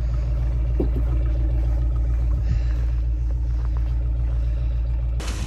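Vehicle engine idling: a steady low rumble. Near the end it cuts abruptly to wind noise on the microphone.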